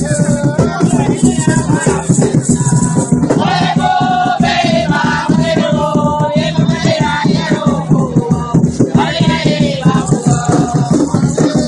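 Live Garifuna Wanaragua dance music: group singing with shaken rattles over a fast, steady beat.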